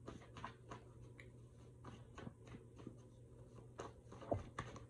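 A deck of index cards being shuffled by hand: a run of soft, irregular card clicks and flicks, with a sharper snap about four seconds in.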